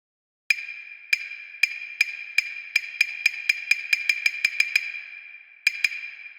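A struck percussion sound effect with a short high ring on each hit: strikes start slowly and speed up, then stop, followed by two last strikes near the end that ring out.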